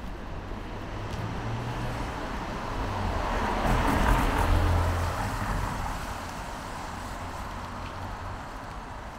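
A motor vehicle passing by on a city street: its noise swells to a peak about four seconds in, then fades back into the general traffic hum.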